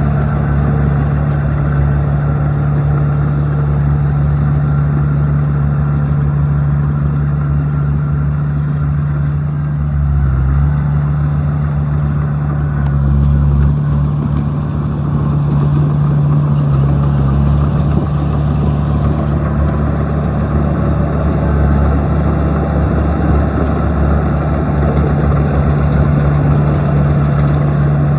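Bulldozer's diesel engine running steadily at an even pitch, a low continuous drone with mechanical clatter over it.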